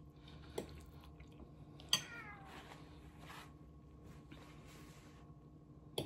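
Quiet eating sounds: a light tap, then about two seconds in another tap with a short high call falling in pitch. A few seconds of soft paper towel rustling follow as a mouth is wiped, and there is another tap near the end.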